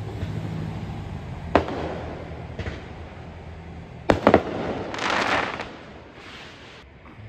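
Aerial firework shells bursting: one sharp bang about a second and a half in, then three bangs in quick succession around four seconds, followed by about half a second of crackling. A low steady hum runs underneath for the first few seconds.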